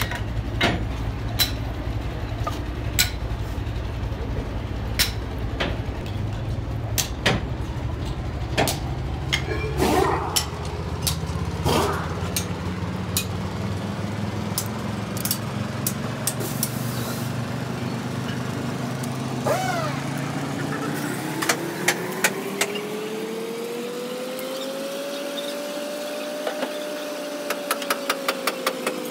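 Sharp metal clinks and knocks from tools and parts on a heavy truck differential being dismantled, over the steady drone of a vehicle engine running. In the later part the engine's pitch rises slowly and falls again, and a quick run of clicks comes near the end.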